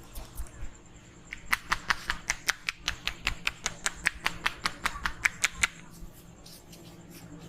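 Hands slapping and tapping in a percussive head massage: a few dull thuds, then after about a second a quick run of around twenty sharp taps, some four to five a second, that stops about six seconds in.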